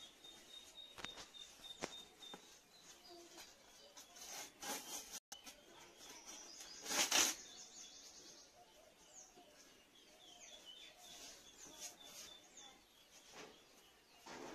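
Small birds chirping in the background, with scattered light knocks and rustles from fuel being pushed into a clay cooking stove. A louder short rustle comes about halfway through.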